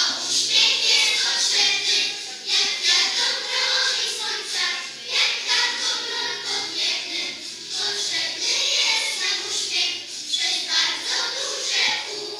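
A group of children singing a song together, with music.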